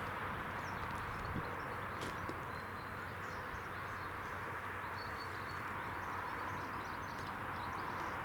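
Steady outdoor background noise, an even rushing hiss, with faint short high bird chirps now and then.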